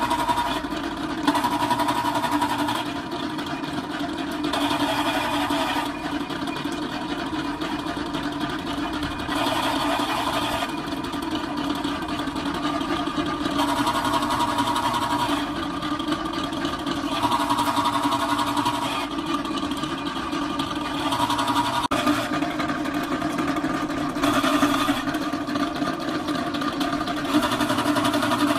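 A motor or engine running steadily, with a higher tone that swells in and out every second or two.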